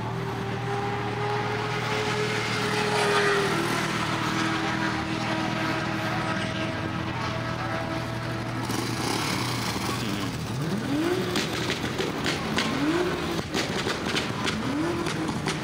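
Vehicle engines running and being revved: a steady drone with one engine held at high revs and slowly easing off, then three rev blips rising and falling about two seconds apart. Sharp pops near the end.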